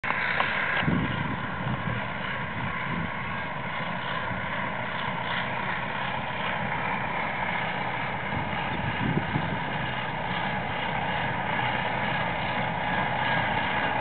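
The diesel engine of an SK-4 combine harvester running steadily as the machine drives along a field track, growing slightly louder near the end as it approaches.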